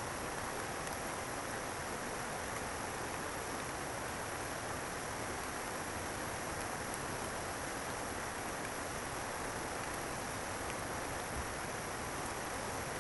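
Steady rush of flowing river water, an even noise that holds the same level throughout.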